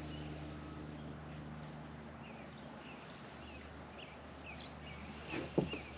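Scattered faint bird chirps over a quiet outdoor background, with a short knock near the end.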